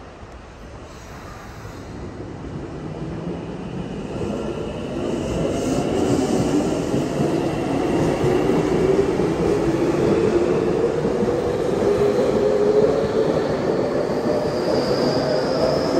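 Electric commuter train pulling out of the station and running past, its motors whining higher and higher as it picks up speed, over the rumble of its wheels on the rails; it gets louder through the first half and stays loud.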